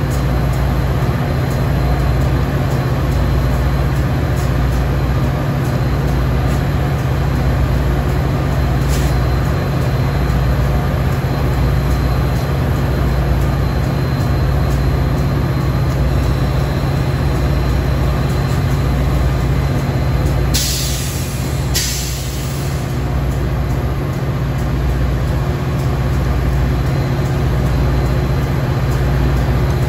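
Metra F40PH diesel-electric locomotive standing with its engine running, a steady deep drone with a rhythmic pulse. About two-thirds through, two short blasts of air hiss from the brake system.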